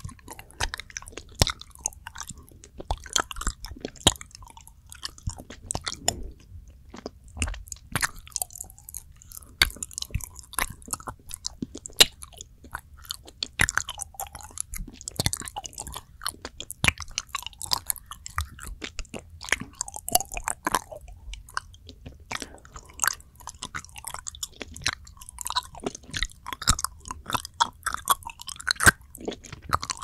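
Close-miked chewing of soft, fudgy planet chocolate: a dense run of sticky, wet mouth clicks and smacks.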